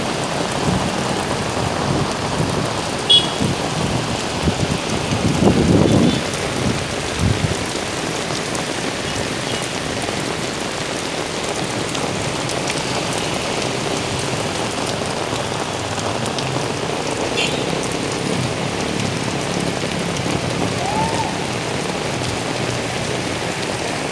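Heavy rain pouring onto a wet asphalt street, a steady hiss, with a louder low rumble about five to six seconds in.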